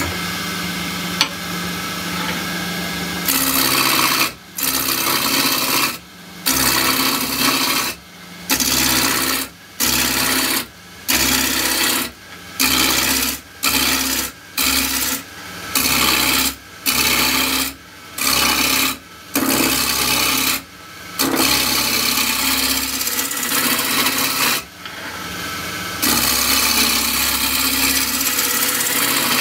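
Roughing gouge cutting into a spinning spindle blank on a wood lathe, over the steady hum of the lathe. The blank is still partly flat-sided, not yet round. The cutting comes as a string of short passes about one a second, then as longer unbroken cuts near the end.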